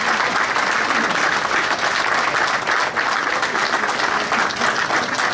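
Crowd applauding, many hands clapping in a steady, dense patter.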